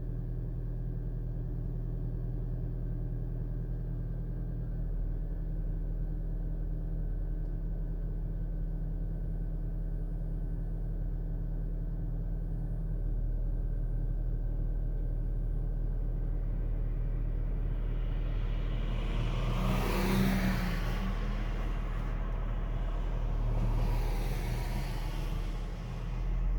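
Steady low engine hum of a car idling, with two vehicles passing close by: the first swells up and fades about three-quarters of the way through, and a second, softer one passes near the end.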